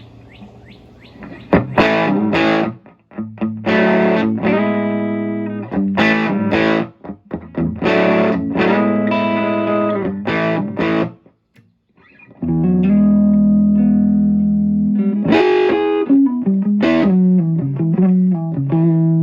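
Les Paul electric guitar played through a Fender '57 Custom Deluxe (5E3 tweed Deluxe) amp's Celestion G12 Blue speaker, instrument volume on 3 and tone on 8. Chords are struck in short stabs with gaps, then after a brief stop about 11 seconds in they ring out longer. The Blue sounds painfully loud.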